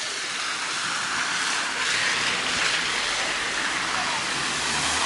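A car driving along a wet, flooded street: a steady hiss of tyres on water that grows louder about two seconds in, with a low engine hum near the end.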